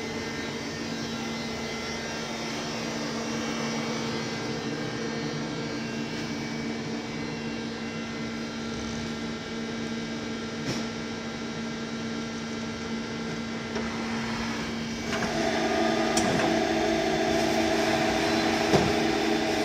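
XYZ Mini Turn 190 CNC lathe running with a steady electrical and motor hum. About 15 seconds in it gets louder as a second, higher hum starts, and a few sharp clicks sound.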